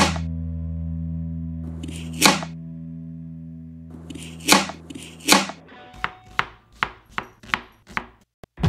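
Knife chopping on a cutting board: four separate sharp strikes, then a quicker run of chops, about three a second, near the end.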